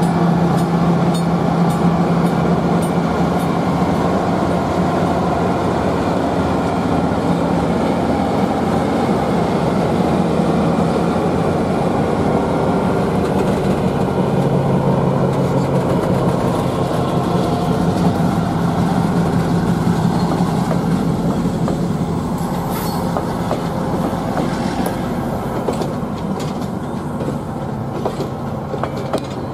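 Commuter train of bilevel passenger cars rolling past at close range, wheels rumbling and clicking over the rails. A low steady hum sits under it at the start and again around halfway, and the sound eases off slightly near the end.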